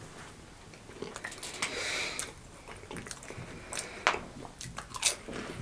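Saltine crackers being bitten and chewed close to the microphone: dry, irregular crunches with several sharp cracks.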